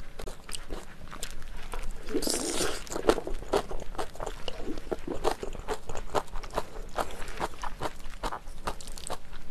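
Close-miked chewing of jjajang rice and kimchi: a quick run of wet mouth clicks and smacks, several a second, with a louder noisy bite about two seconds in.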